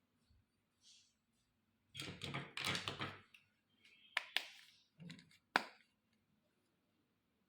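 Small plastic toy kitchen pieces being handled: a rattling clatter for about a second, then a few sharp clicks and taps as parts are set down or snapped into place.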